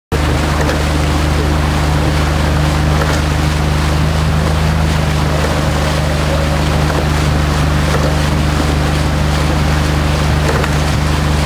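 Outboard motor running at a steady speed, a constant low drone, with wind and water noise rushing past.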